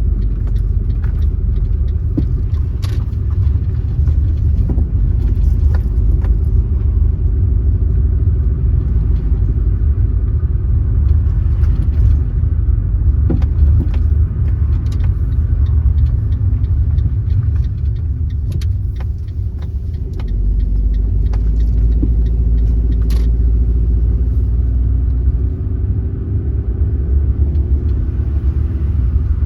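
Car driving on the road: a steady low rumble of tyres and engine, with scattered small clicks and rattles. The engine note rises a little near the end, as if accelerating.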